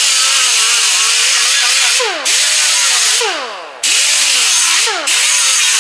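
Blue Point air-powered right-angle Roloc grinder grinding surface rust off sheet metal: a loud air hiss with a whine whose pitch sags each time the disc bites into the metal and climbs again as it frees up. It runs in about four stretches, with brief breaks where the trigger is let off.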